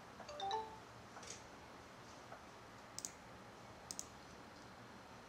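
Two faint, sharp double clicks about a second apart over quiet room tone, with a few short high-pitched chirps right at the start.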